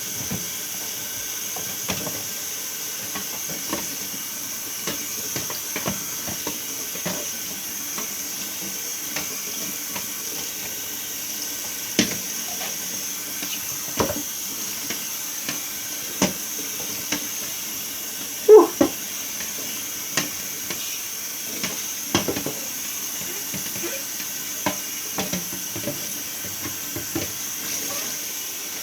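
A steady hiss of running water with scattered knocks and clatters of parts being cleaned in a mini fridge. One short, louder squeaky scrape comes about two-thirds of the way through.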